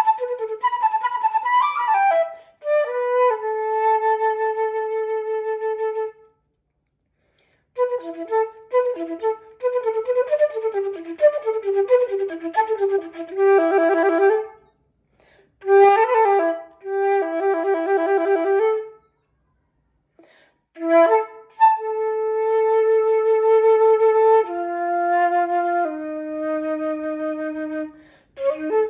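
Unaccompanied flute playing fast runs of notes alternating with long held tones, broken by two short pauses.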